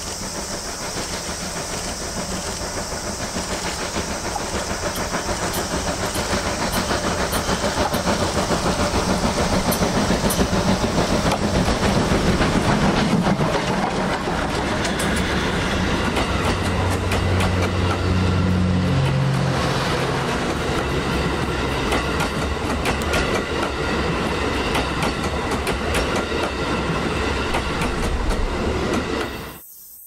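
Steam locomotive hauling a passenger train, running louder as it approaches and passes close by at about twelve seconds. The coaches then roll past with their wheels clacking over the rail joints, until the sound cuts off abruptly near the end.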